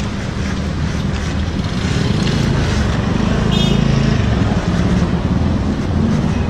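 Motorcycle engine running at low speed as the bike is ridden slowly, getting a little louder about two seconds in. A brief high-pitched chirp sounds about three and a half seconds in.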